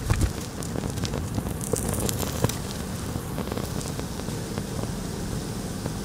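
Small flame burning on a bundle of wooden matches wrapped in a black coating: a steady hiss with scattered small pops and crackles.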